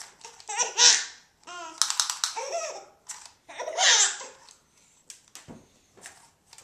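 Baby laughing in three bursts, with a few short clicks in between.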